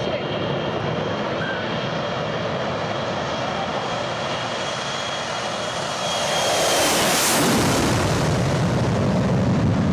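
Four-engine jet airliner at take-off power: a steady jet roar with a high whine. About six seconds in the roar grows louder and peaks a second later as a jet passes low overhead, then goes on as a deeper rumble.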